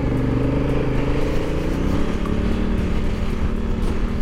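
Honda Africa Twin CRF1000L parallel-twin engine running under way at road speed, heard from inside the rider's helmet. Its note shifts pitch about two seconds in, then holds steady. A low wind rumble buffets the microphone.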